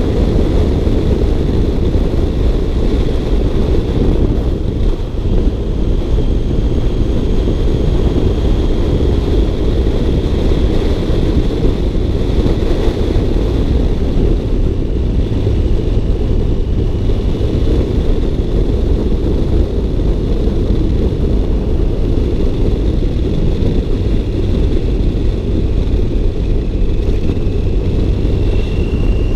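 Car being driven, with steady engine and road rumble and a faint high whine that rises slightly near the end.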